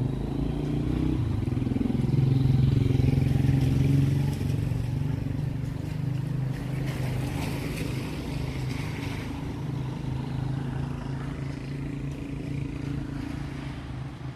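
A motor vehicle engine running close by, its low hum loudest about two to four seconds in and then slowly fading.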